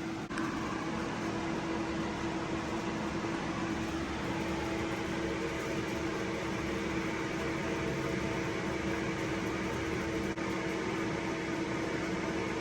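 A steady mechanical hum: one constant low tone over an even hiss, unchanging throughout.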